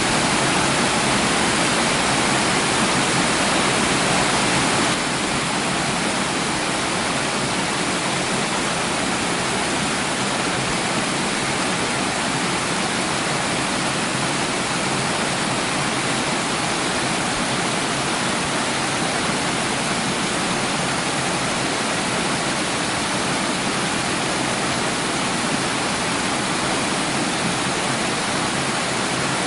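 Steady rush of running water, an even hiss without distinct splashes, dropping slightly in level and brightness about five seconds in.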